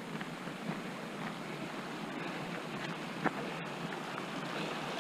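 Steady rushing noise, growing slightly louder toward the end, with a few faint crunches of footsteps on a rocky dirt trail.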